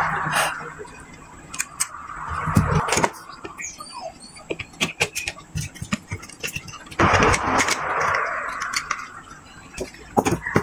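Handling noises from a portable speaker repair: two rasping, squeaky stretches of masking tape being pulled and pressed around a battery pack, with a run of light clicks and taps from the plastic case and parts between them.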